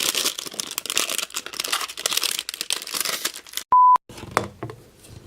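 Rustling, crinkling and clicking of small plastic toy parts being handled, then, about three and a half seconds in, a single short steady beep, the loudest sound, with dead silence just before and after it, like an edited-in bleep.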